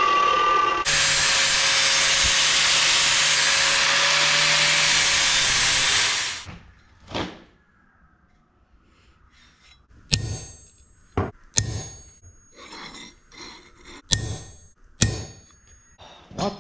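Metal chop saw cutting through 3/16-inch steel plate: a loud, steady grinding noise with a faint motor tone under it, stopping about six seconds in. Later come a handful of sharp metallic clinks and knocks with a short ring, as steel pieces are handled.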